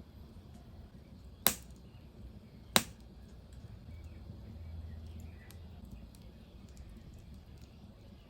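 Wood fire crackling in a fireplace: scattered faint ticks over a low steady rumble, with two loud sharp pops a little over a second apart about a second and a half in.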